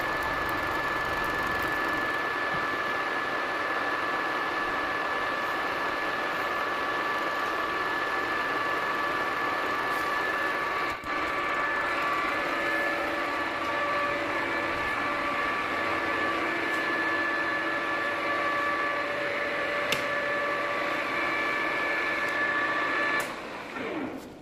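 Small metal lathe running, its motor and gears giving a steady whine with several held tones. Near the end it is switched off and winds down, the whine falling in pitch as the spindle stops.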